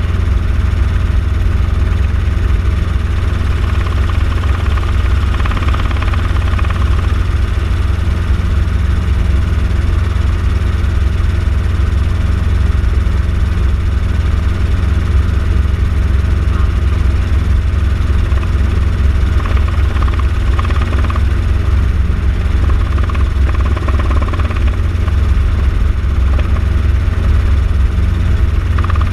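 Small helicopter in flight, heard from inside the cabin: the engine and rotor running as a steady, loud, deep hum that does not change.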